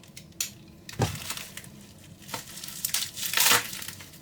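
Packaging crinkling and tearing as a knife cuts into a wrapped package, with a sharp knock about a second in and a louder ripping rush about three and a half seconds in.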